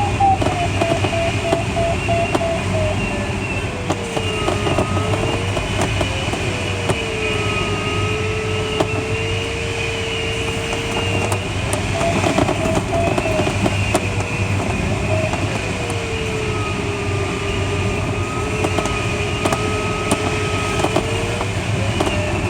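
Steady airflow noise in the cockpit of a Schleicher ASK21 glider in flight, under a continuous electronic beep-free tone from the audio variometer that slides lower and back up in pitch several times as the glider passes through sinking and rising air.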